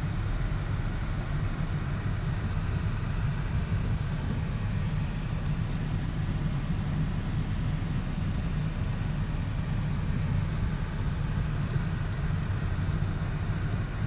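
Car being driven: a steady low engine and road rumble heard from inside the car.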